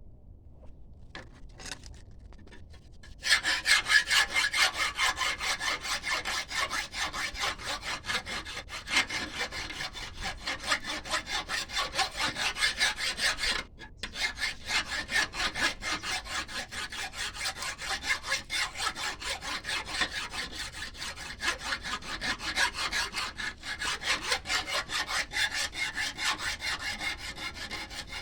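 A hand tool scraping back and forth in quick, even strokes, starting about three seconds in, with a short break about halfway through.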